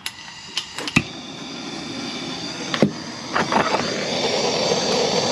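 Several sharp clicks and knocks, then the steady hiss of a gas blowtorch flame, growing louder over the last couple of seconds as it heats a copper pipe joint for soldering.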